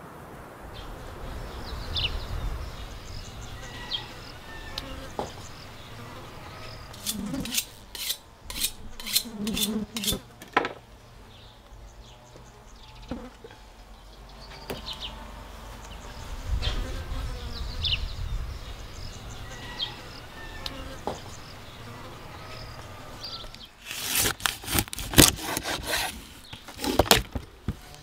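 Knife scraping and knocking on a wooden cutting board as a whole salmon trout is cleaned. The sharp strokes come in two bursts, about seven seconds in and again near the end, over outdoor ambience with insects buzzing.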